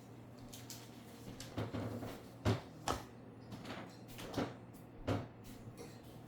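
A series of light, irregularly spaced knocks and clicks, about seven in all, the sharpest about two and a half and five seconds in.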